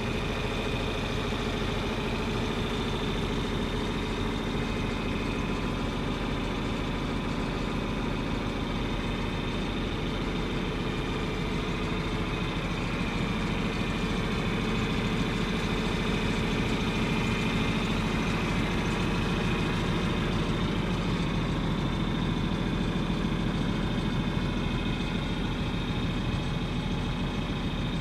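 Engine running steadily at an even speed, a little louder from about halfway through.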